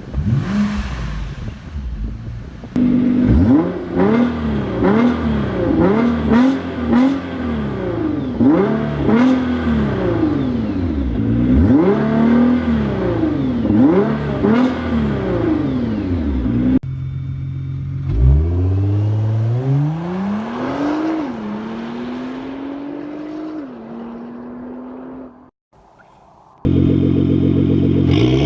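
Nissan GT-R exhaust: a series of quick free-revs that rise and fall about every second and a half. Then the car accelerates, its note climbing through the gears with a drop at each upshift, and fades away. After a moment of near silence a loud steady engine note comes in near the end.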